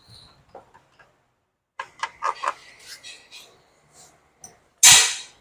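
Tools and metal parts knocking and clinking during the removal of a car's radiator fan motor: a quick run of sharp knocks with a faint ring after them, a few lighter clicks, then one loud brief clatter near the end.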